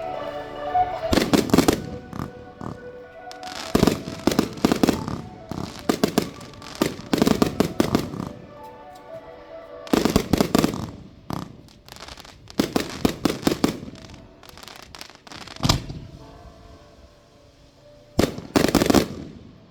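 Fireworks going off: clusters of rapid bangs and crackling bursts, a new volley every two to three seconds, with a loud pair of bursts near the end. Music plays underneath.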